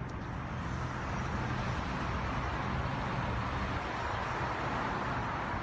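Steady road traffic noise from vehicles on the highway, with a low engine hum underneath.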